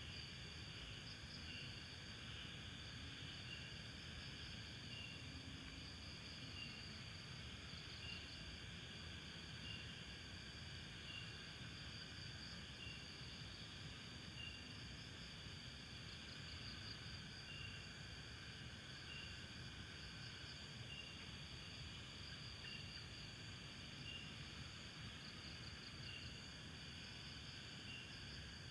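Night insects chirping: a steady high trill that swells into pulsed bursts every few seconds, with a short chirp repeating about once a second, over a faint low hiss.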